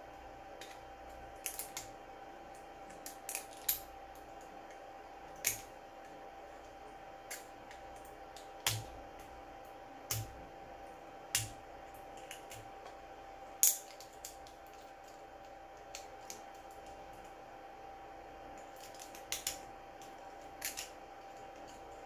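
Small flush cutters snipping leftover plastic off a 3D-printed ball bearing part: short sharp snips at irregular gaps of a second or two, over a faint steady hum.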